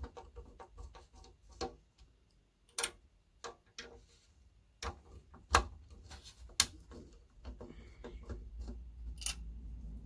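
Irregular sharp clicks and knocks from hands and tools working on a speaker cabinet and its drivers during disassembly, two louder knocks about five and a half and six and a half seconds in.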